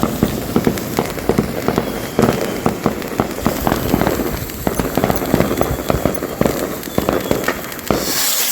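Fireworks popping and crackling, with many irregular sharp pops one after another. A hissing rush starts near the end.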